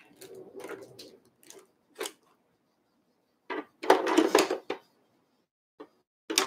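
Craft tools being rummaged and picked up on a desk while blending brushes are gathered: light rustling and a click, then a loud clatter lasting about a second in the middle, and a few short knocks near the end.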